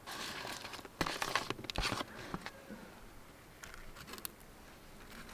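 Mushrooms scraped by hand off a paper plate onto tortilla wraps: dry paper scraping and rustling with a few sharp clicks, dying down after about two and a half seconds into faint light taps as the wrap is handled.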